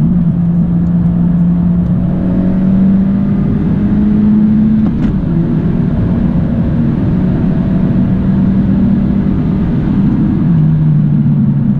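Turbocharged 1.5-litre four-cylinder of a tuned Honda Civic with a catless downpipe, pulling hard at full throttle, heard from inside the cabin. The engine note climbs steadily, drops sharply with a click at an upshift about five seconds in, climbs again in 4th gear and drops once more at another upshift near the end.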